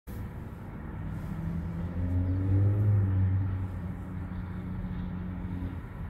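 Car engine running, a low steady hum that swells about two to three seconds in and then eases back.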